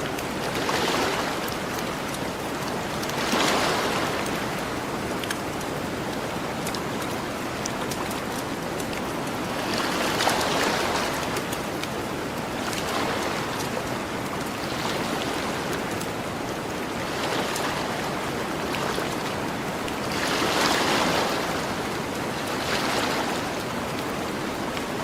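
Gentle ocean waves breaking and washing onto a beach, swelling every few seconds, with faint crackling from a campfire.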